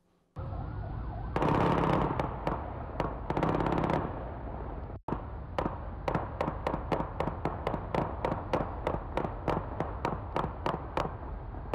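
Gunfire recorded by a ShotSpotter street sensor: a handgun converted to fully automatic fire shoots two rapid bursts, then after a brief cut comes a long string of separate shots, about three a second, which matches the police's semi-automatic return fire. The recording sounds muffled and distant.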